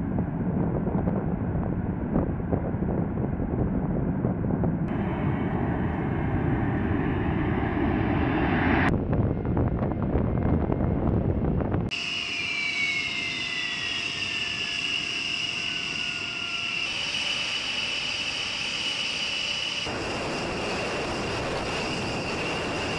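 B-1B Lancer's four F101 afterburning turbofan jet engines. A loud, deep takeoff rumble lasts for the first half, then gives way to a high, steady turbine whine with a tone sliding down in pitch. The sound changes abruptly several times as the shots are cut together.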